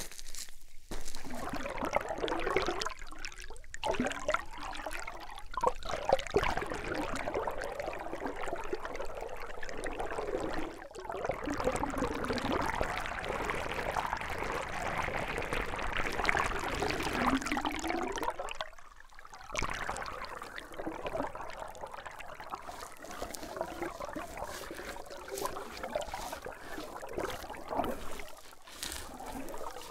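Creek water heard underwater through a hydrophone: a steady bubbling, gurgling flow of water rushing past rocks, with short dips about a third and two-thirds of the way in.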